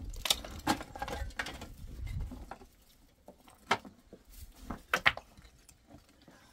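Irregular sharp light knocks and clicks, several in the first two seconds over a low rumble, then spaced out, with the loudest pair about five seconds in.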